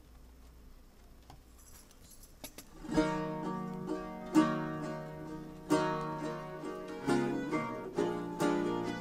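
Near-quiet room tone for about three seconds, then a baroque string ensemble suddenly starts a zamacueca. Strummed guitars and other plucked strings play rhythmic chords, with a strong accented strum about every second and a quarter, over sustained string tones.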